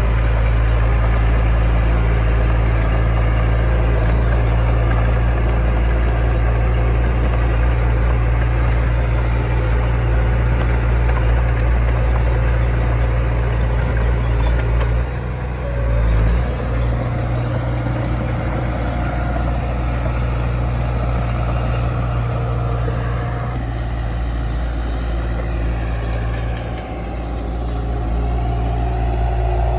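Heavy diesel engine of earthmoving machinery running steadily, with a brief dip in loudness about halfway through and again near the end.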